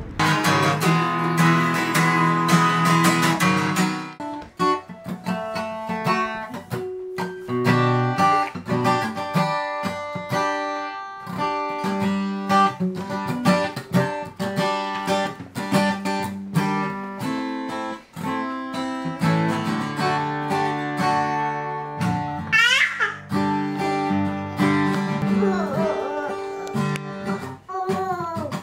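Acoustic guitar music: a continuous run of plucked notes. There is a short high sliding sound about two-thirds of the way through.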